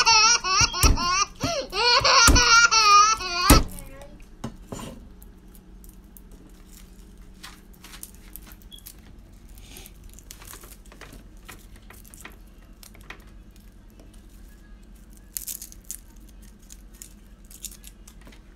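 A loud voice with a strongly wavering pitch for about the first three and a half seconds, cutting off suddenly. Then quiet, scattered light taps and clicks of a kitchen knife and fingers working garlic cloves on a wooden cutting board, over a low steady hum.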